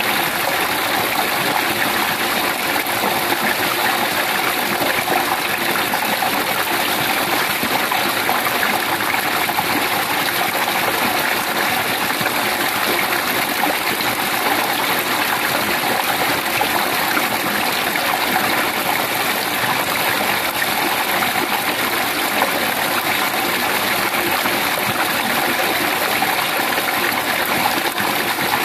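Steady rushing of running water, an even noise that holds at the same level throughout without a break.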